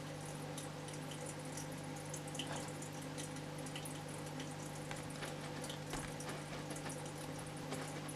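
Small aquarium filter running: a steady low hum with water trickling and dripping, and small irregular ticks throughout.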